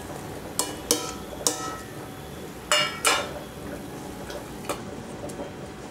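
A steel plate clinking and knocking against a stainless steel pressure cooker as chopped vegetables are tipped in: about six sharp metallic clinks that ring briefly, the loudest pair near the middle.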